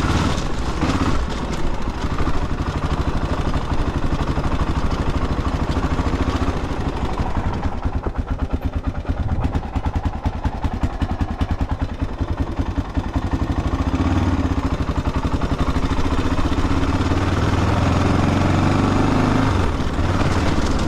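Honda XR600R dirt bike's big single-cylinder four-stroke engine running while riding, dropping to slow, separate low-rev firing pulses in the middle, then pulling steadily again for the last several seconds.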